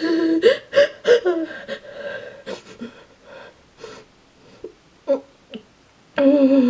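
A girl whimpering in play-acted fear: a held, whining cry at first, then short breaths, gasps and sniffs with quiet gaps, and another drawn-out whine near the end.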